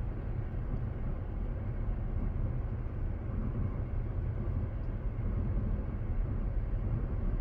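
Steady low rumble of a car's engine and road noise heard from inside the cabin while driving slowly.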